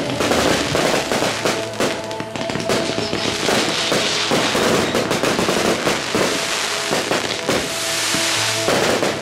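Fireworks finale barrage: aerial shells bursting in rapid, overlapping succession, with crackle and hiss between the bangs. Music with held tones plays underneath.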